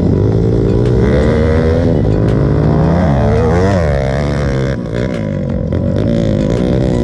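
Two dirt-bike engines revving and accelerating away, their pitch climbing and dropping through gear changes. About halfway through, one engine's pitch rises while the other's falls.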